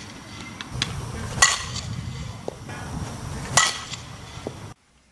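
A fastpitch softball bat hitting a softball twice, about two seconds apart, each contact a sharp ringing ping.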